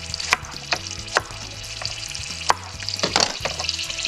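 Food sizzling steadily in a hot pan, with a few sharp knocks of a knife on a cutting board as zucchini is cut into wedges, and a brief crackle near the end.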